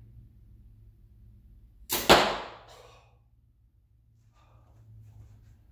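Mathews compound bow shot: two sharp cracks a fraction of a second apart about two seconds in, the string snapping forward on release and then the arrow striking the target, dying away within about a second.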